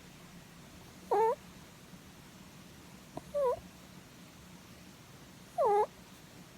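Sleeping pet rabbit giving three short 'puu' calls about two seconds apart, each dipping and then rising in pitch, while its head is stroked.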